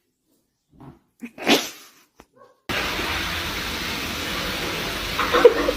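A cat's short, brief cry about a second and a half in. Then comes a steady background hiss, with a quick run of short pitched calls near the end, about four or five a second.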